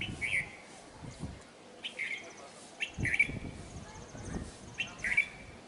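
Asian pied starling (pied myna) giving short, harsh chirping calls, four times at intervals of one to two seconds.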